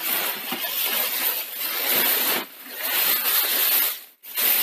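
Plastic bag and cardboard rustling and rubbing as a bagged video recorder is handled and lifted in its cardboard box, in long stretches with brief pauses about halfway and near the end.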